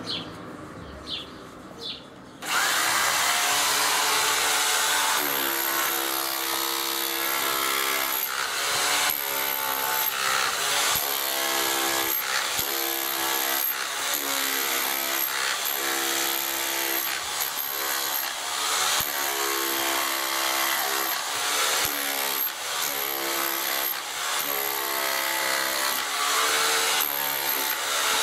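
Metabo UHE 20 electric rotary hammer in chiselling mode, hammering old render off a masonry wall. It starts about two and a half seconds in and runs loud and continuous, its note changing every second or two.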